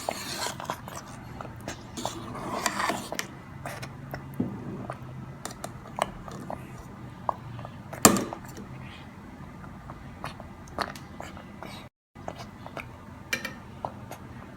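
Kitchen utensils clinking and scraping on cookware, with a sharp knock about eight seconds in, over a low steady hum.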